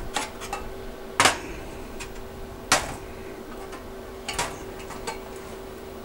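Aluminized steel exhaust pipe knocking and clinking against a steel welding table as it is turned and repositioned, with two louder clanks about a second and nearly three seconds in. A steady hum runs underneath.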